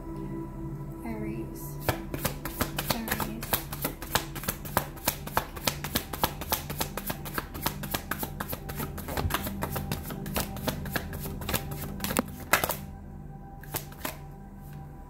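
A deck of reading cards shuffled by hand: a fast run of crisp card clicks that starts about two seconds in and stops near the end. Soft background music plays throughout.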